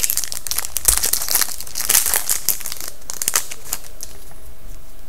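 Foil wrapper of a hockey card pack torn open and crinkled by hand: a dense crackle that dies away nearly four seconds in.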